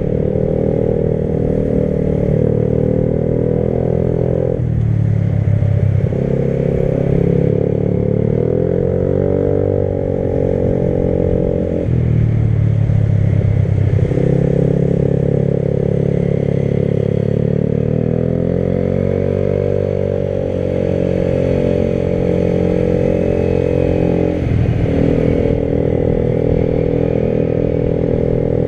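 Motorcycle engine running while riding. Its pitch shifts abruptly a few times, about five, twelve and twenty-five seconds in, and rises and falls smoothly in between, as the rider changes gear and throttle.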